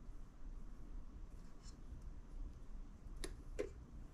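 Silicone spatula scraping creamed butter and sugar off a stand mixer's flat beater, soft rubbing sounds with two light taps near the end.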